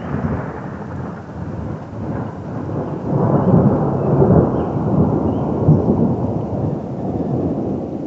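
Rolling thunder: a long, loud, low rumble that swells about three seconds in and keeps rolling.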